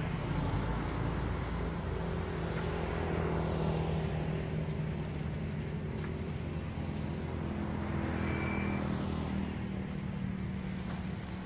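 A motor engine running steadily nearby, a low hum that swells and fades a little, with a brief high tone about eight seconds in.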